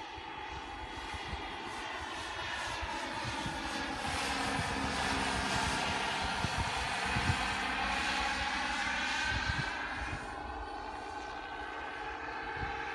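Radio-controlled scale model helicopter flying past, its motor and rotor whining steadily. The whine grows louder toward the middle, then its pitch falls and it fades somewhat as the helicopter moves away, about ten seconds in.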